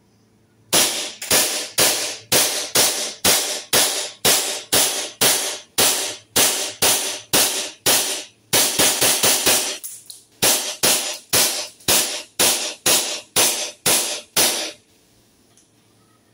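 Army Armament Combat Master 6 mm gas blowback airsoft pistol firing a long string of about thirty shots, two to three a second, each a sharp crack, with a short pause about ten seconds in; the firing stops near the end.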